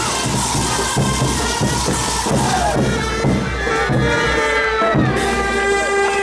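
Saya caporales dance music: a band with a steady drum beat and wind instruments, ending on held notes near the end.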